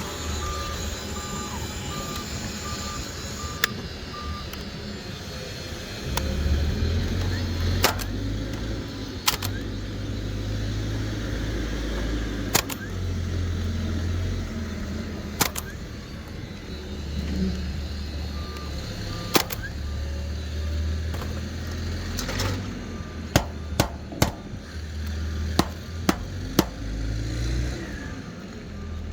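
Scattered sharp knocks of hand tools working on an asphalt shingle roof, coming more often near the end, over a low rumble. A vehicle's reversing beeper sounds in short, evenly spaced beeps at the start and again in the last few seconds.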